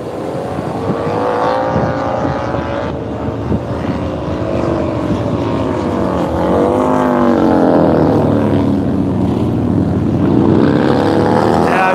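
Race-tuned V-twin bagger motorcycles braking into a corner and accelerating out of it, engine pitch climbing, dropping with the gear changes and climbing again several times as they pass.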